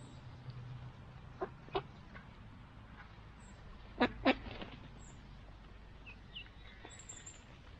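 Mallard ducklings peeping: a pair of short peeps about a second and a half in, then a louder pair about four seconds in. Faint high bird chirps come near the end.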